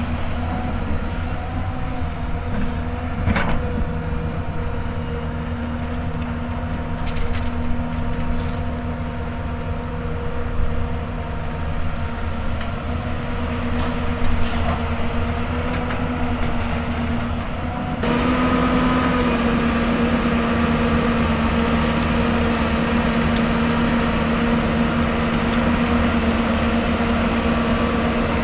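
Hyundai Robex 220-9S excavator's diesel engine running steadily while it digs, with a few short knocks. About two-thirds of the way through the sound steps up suddenly, louder and brighter.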